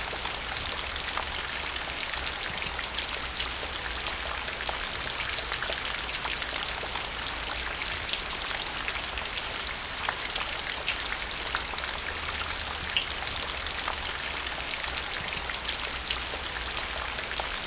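Rain falling into a puddle: a steady hiss of drizzle with many small, separate drip splashes on the water's surface.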